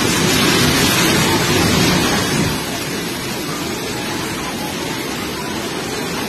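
Two-storey house collapsing into a flooded river, its foundation washed out from beneath. There is a loud crash and churning of water for about the first two and a half seconds, then the steady rush of the muddy floodwater.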